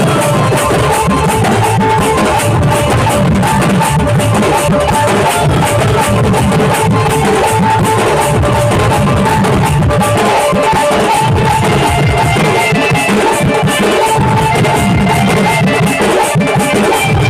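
Tasa drum ensemble with a dhol, beaten with sticks in a loud, fast, unbroken rhythm. A steady melody line runs over the drums.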